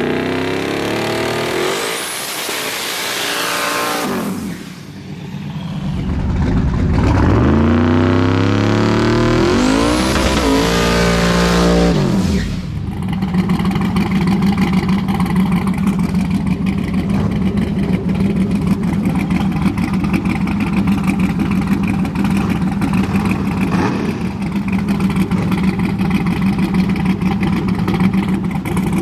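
Turbocharged square-body Chevrolet Silverado pickup's engine revving up twice, then held at a steady high pitch through a long burnout, its rear tyres spinning and smoking.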